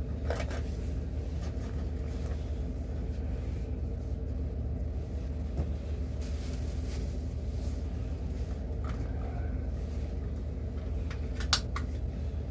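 Steady low mechanical hum, with a few light clicks, one just after the start and two about eleven and a half seconds in.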